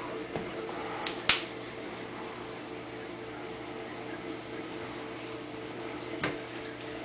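Steady hum of aquarium pump equipment. Two sharp clicks come close together about a second in, and a softer one comes near the end.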